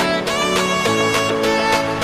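Background music: an instrumental tune with string instruments and a steady rhythm.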